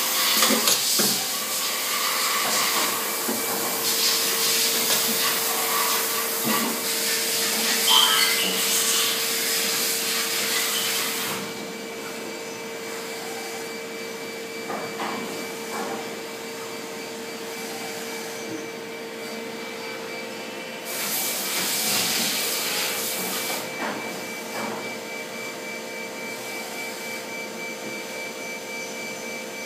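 Machinery running in a factory: a steady hum with a constant whine, overlaid by loud hissing noise for the first eleven seconds or so and again in a shorter stretch about two-thirds of the way through.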